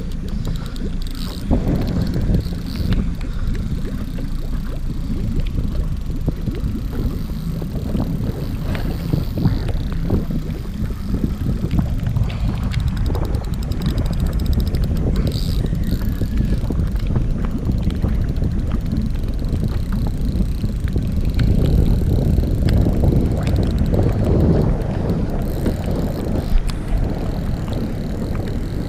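Wind rumbling on the microphone: a steady low roar that rises and falls, with a few light knocks.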